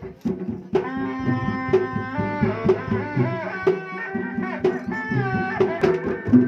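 Sundanese reak ensemble music: drums beat a fast, steady rhythm, and from about a second in a held melody line slides between sustained notes over them.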